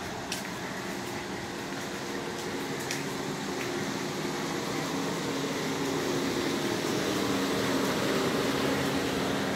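Steady hum inside a car's cabin, with the engine running and the air-conditioning fan blowing, growing slightly louder; a few faint ticks.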